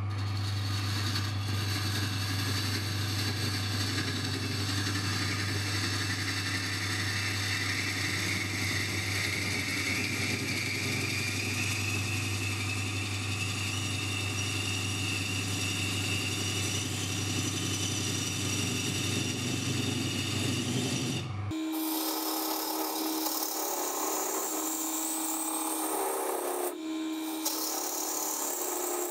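Wood lathe running while a hook tool hollows the end grain of a spinning wooden blank: a steady motor hum under the scraping and rasping of the cut, with a faint slowly rising whine. About two-thirds of the way in the sound changes abruptly, the low hum dropping away and leaving a higher steady tone with the scraping.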